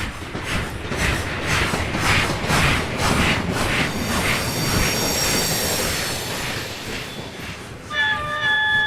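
Steam locomotive passing close by, its exhaust chuffing in a steady beat of about two and a half a second. Midway there is a high steady squeal, typical of wheels on the rails. Near the end a chord-like steam whistle sounds and holds.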